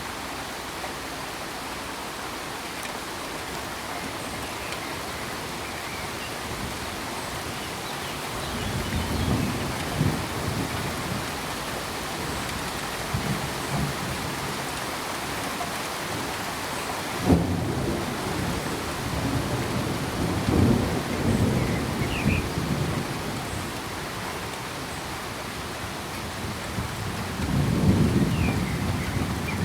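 Steady rain with rolls of thunder: low rumbles begin about eight seconds in, a sharp crack a little past halfway leads into a longer rumble, and another rumble swells near the end.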